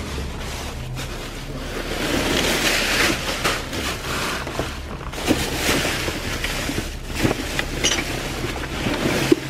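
Rustling and clattering of items being handled and rummaged through, with many short knocks. Under it runs a surging noise like wind on the microphone, and a steady low hum.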